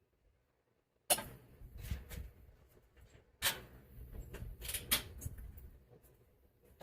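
After about a second of near silence, a few sharp knocks and clanks of tools and metal parts being handled, with low rumbling handling noise in between.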